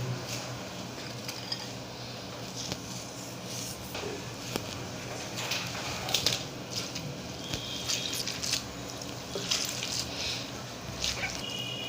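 Wet squishing and dripping of panta bhat, rice soaked in water, being mashed and mixed by hand, with scattered small clicks and splashes.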